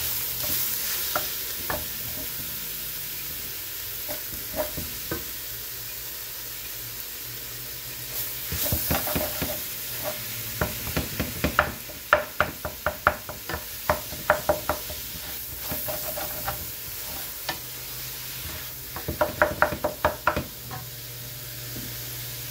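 Ground beef sizzling as it browns in a stainless steel sauté pan, with a wooden spatula knocking and scraping against the pan in runs of quick strokes, heaviest about halfway through and again near the end.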